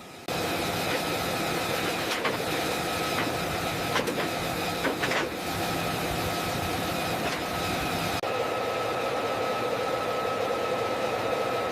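Steady mechanical running noise with a high whine, starting suddenly, with a few sharp clicks about 2, 4 and 5 seconds in. It cuts abruptly about eight seconds in to a similar drone with a lower hum.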